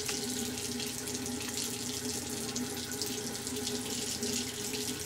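Bathroom faucet running a thin, steady stream of water into the sink basin and drain.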